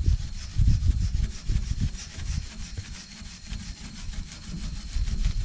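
Fine 0000 steel wool rubbed back and forth over rusty chrome in quick repeated strokes, over an uneven low thumping rumble.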